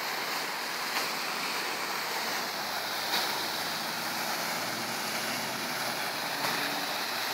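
Fountain jet splashing steadily into a pool, an even rush of water, with a few faint clicks.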